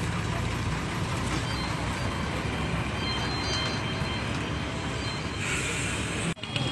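Roadside traffic noise: a steady low engine hum under a rushing noise, with a brief hiss about five and a half seconds in and a short drop-out just after it.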